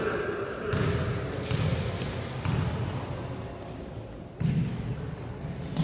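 A basketball being dribbled on an indoor court: a series of dull bounces roughly every half second to second, with a louder burst of sound about four and a half seconds in.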